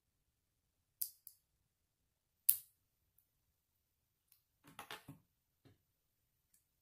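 Small plastic Lego bricks clicking as they are pressed together: two sharp clicks about a second in and a louder one near the middle. About two-thirds through comes a short cluster of knocks and rattles as a piece is set down on the wooden table and loose bricks are picked through.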